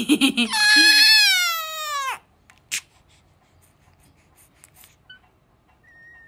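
Baby's long high-pitched squeal, lasting about a second and a half and sliding down in pitch as it ends, followed by near quiet with a single click.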